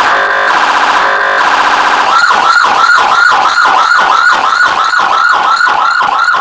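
Remote-controlled electronic police siren sounding loudly. For about two seconds it gives a very fast warble, twice broken by a short steadier tone. Then it changes to a yelp, a quick rising-and-falling wail repeating about four times a second.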